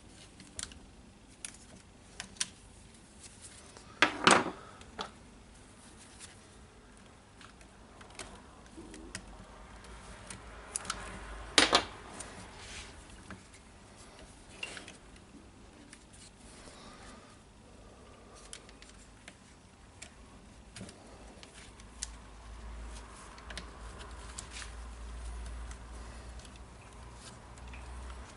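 Hands handling small wires, tape and plastic parts: scattered light clicks and taps, with two sharper knocks about four and twelve seconds in. A faint low hum comes in near the end.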